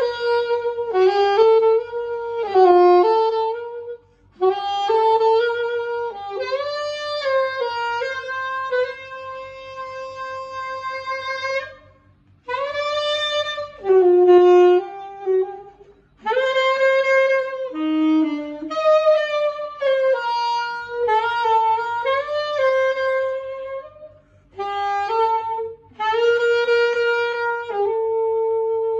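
Conn AS-651 alto saxophone played solo: melodic phrases of long held notes and moving runs, broken by short pauses for breath. It is a play-test of the instrument's sound.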